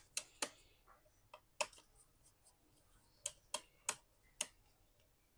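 Irregular small sharp clicks and taps, about seven in all, with a quick run of four in the second half, from gloved hands and a tool working on the exposed internals of a Lenovo ThinkPad T590 laptop.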